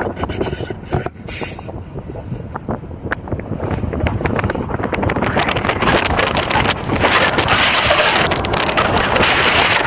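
Wind buffeting the microphone of a 360 camera held up through the open sunroof of a moving car, over the car's road noise; the rush builds louder partway through as the car picks up speed.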